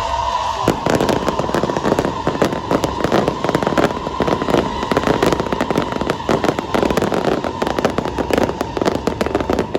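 Aerial fireworks crackling in a dense, rapid barrage of sharp pops that starts just under a second in, with a steady high tone running underneath.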